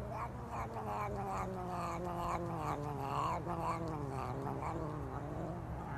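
Long-haired colorpoint cat giving a low, drawn-out yowl that wavers and slowly falls in pitch while a finger pokes at its mouth, the grumbling sound of an annoyed cat.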